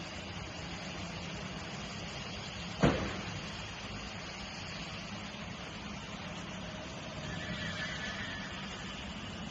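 Steady machinery hum and noise of a working factory floor, with one sharp knock about three seconds in.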